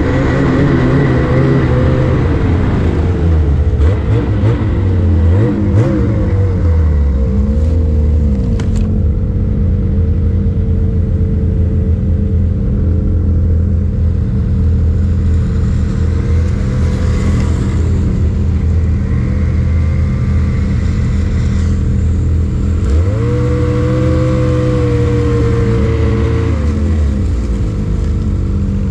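Snowmobile engine running under way, heard from on board the sled, its pitch rising and falling as the throttle is opened and eased, a few seconds in and again near the end.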